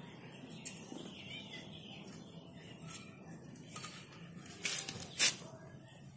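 Two sharp knocks about half a second apart, a little under five seconds in, from the CRT TV's wiring and circuit board being handled. Faint bird chirps sound in the background.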